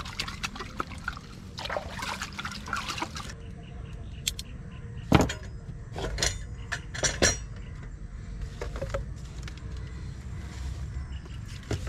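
Water pouring and splashing from a small steel pot dipped in the river, for about the first three seconds. Then a few knocks and clicks of things being handled, the loudest a dull thump about five seconds in.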